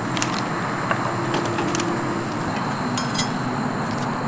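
Metal tongs clicking against a cast-iron skillet a few times as a croffle is lifted and turned, over the steady hiss of a camping gas burner heating the pan.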